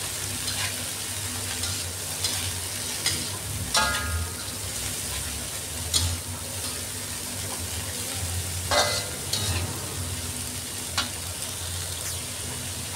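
Bean sprouts and chilies sizzling as they stir-fry in a metal wok, with a slotted metal spatula scraping and clinking against the wok every second or two. Two of the strokes, about four and nine seconds in, ring briefly.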